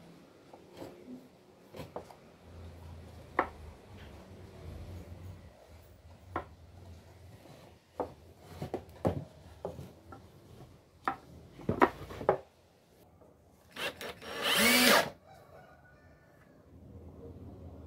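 Wooden boards handled and set down on a wooden workbench, with scattered light knocks and clicks. About 14 seconds in, a cordless drill runs once for about a second, its pitch rising and falling.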